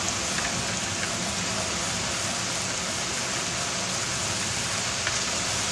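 Heavy thunderstorm rain pouring steadily, a dense, even hiss.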